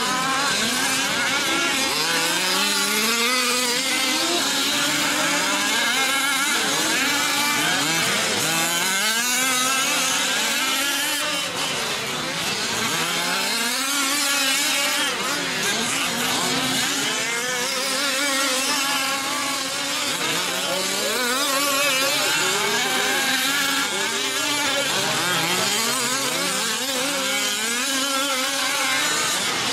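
Several 5th-scale RC off-road trucks' small two-stroke petrol engines racing together, their overlapping pitches rising and falling again and again as the throttles open and close.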